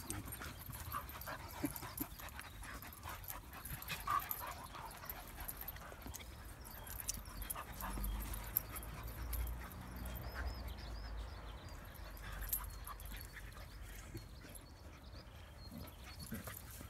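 Dogs playing rough together, two Shiba Inus and a larger curly-coated dog: scuffling and panting, with a few short high whines.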